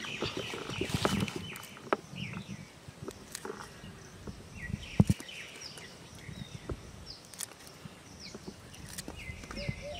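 Scissors snipping prawns over a steel plate: scattered sharp clicks, the loudest about five seconds in. Repeated short high-pitched animal calls sound in the background.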